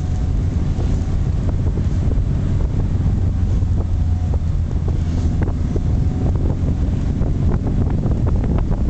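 Wind buffeting the microphone over the low, steady rumble of a sports car's engine and tyres driving along a narrow lane. Scattered light ticks come in during the second half.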